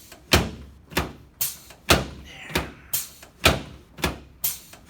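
A steady run of sharp knocks, evenly spaced at about two a second.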